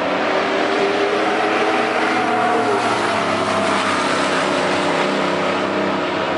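A pickup truck's engine running hard as it races down a drag strip. The engine note holds steady, with one dip in pitch about halfway through.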